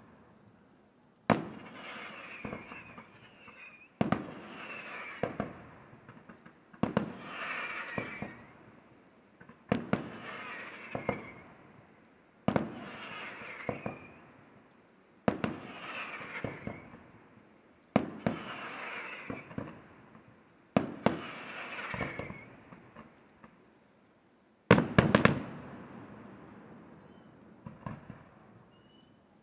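Aerial firework shells bursting one after another at an even pace, about every three seconds, each sharp bang followed by a second or two of smaller crackling pops. Near the end a louder volley of several bangs close together.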